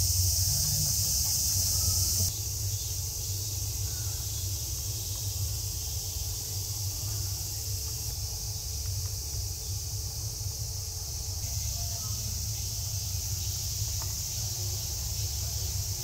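Summer cicadas chorusing: a steady, high-pitched shrill drone, strongest for the first two seconds and again from about eleven seconds on, over a steady low rumble.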